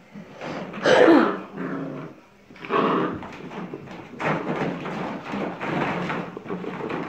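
Standard poodle puppies growling and crying as they play, the loudest cry about a second in, with the clatter of plastic ball-pit balls being pushed about in the later seconds.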